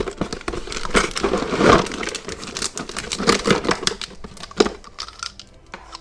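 Crinkling and rustling of toy packaging being handled and opened, with irregular light clicks, loudest about a second in.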